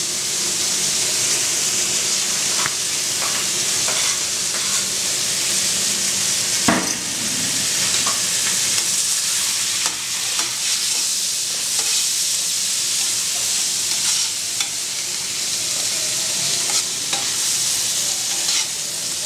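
Diced onion, chicken thigh and chorizo frying in hot olive oil in a steel paella pan, with a steady sizzle. A spatula stirs the pan, scraping and knocking against it now and then, with one louder knock about a third of the way in.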